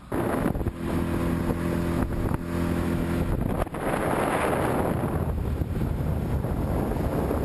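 A boat's motor running under way, with a steady engine hum in the first few seconds, and wind rushing over the microphone. The sound jumps in abruptly at the start.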